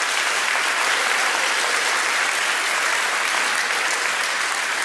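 Audience applauding, a steady, dense clapping that holds at an even level.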